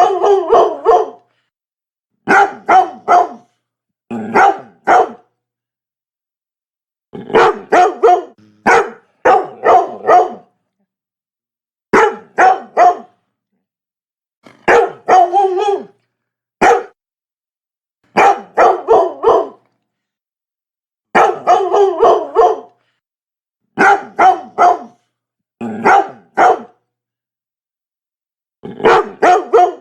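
Labrador barking in quick runs of two to four barks, with short pauses between the runs.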